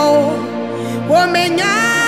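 A woman singing a worship song in Ewe over backing music with sustained chords. One sung phrase ends just after the start, and a new one rises about a second in and is held.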